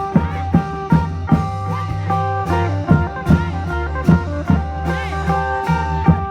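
Isan folk music: a phin (northeastern Thai lute) playing a lai melody with bending notes over a steady low drone, with klong yao long drums beating about twice a second.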